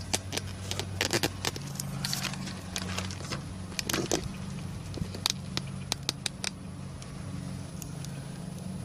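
A steady low mechanical hum, like a motor running, with scattered sharp metallic clicks and clinks that thin out after about six and a half seconds.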